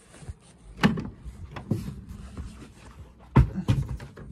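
A series of knocks and thumps from things being handled, the loudest about a second in and a quick cluster of three about three and a half seconds in.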